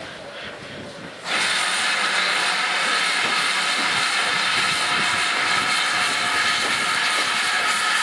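Steam locomotive arriving, with a loud, steady hiss of escaping steam that starts suddenly about a second in and keeps on evenly.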